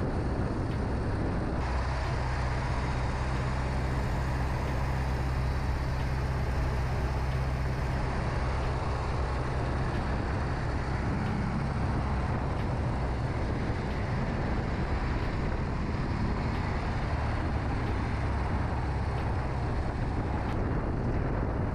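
BMW R 18 Transcontinental's 1802 cc two-cylinder 'Big Boxer' engine running at a steady low-speed cruise, a deep even hum, with road noise. The hum gets a little stronger about two seconds in.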